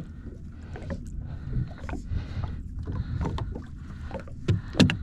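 Water splashing and sloshing around a small fishing boat as a landed trout is handled at the side, with a couple of sharp knocks near the end.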